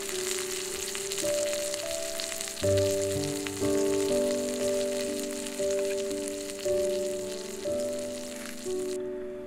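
Beef steak slices frying in oil in a pan, a steady sizzle that stops suddenly near the end. Background music of held notes runs under it, taking on a beat about once a second from a few seconds in.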